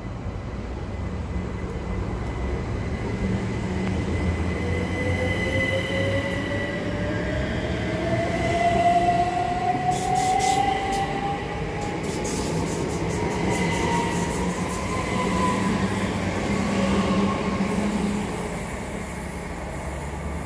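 Class 379 Electrostar electric multiple unit running past along the platform: a steady rumble of wheels on rail under a traction-motor whine that climbs slowly in pitch as the train gathers speed. A quick run of sharp clicks from the wheels comes about halfway through.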